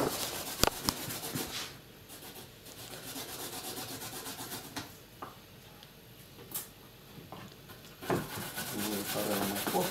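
A carrot being grated on a handheld metal box grater: quick rhythmic rasping strokes, a couple of sharp knocks near the start, softer through the middle and strong again from about eight seconds in.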